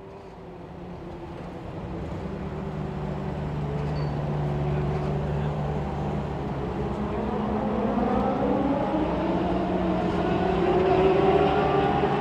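A pack of four-cylinder mini stock race car engines running, growing steadily louder, with several engines rising in pitch together in the second half.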